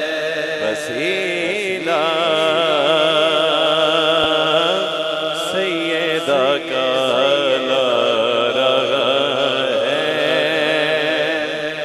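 A male naat reciter singing a long, drawn-out melismatic line with heavy vibrato, amplified through a PA sound system, with a steady low drone underneath.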